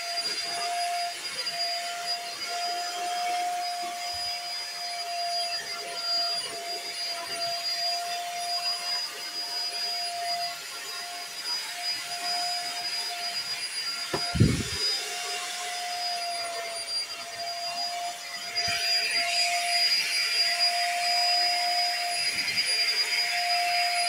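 Vacuum cleaner running on a carpet: a steady motor whine over the hiss of suction. There is a single low bump about halfway through, and the suction turns louder and hissier about three-quarters of the way in.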